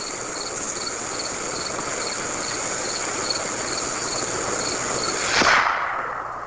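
Lit fuse of a match-head PVC pipe detonator hissing steadily for about five seconds, then a sudden sharp bang as the detonator goes off, dying away over about a second.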